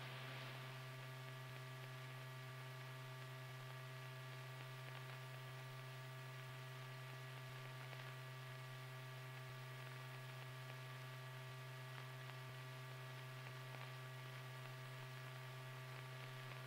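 Steady electrical mains hum with faint hiss, unchanging, with no other sound.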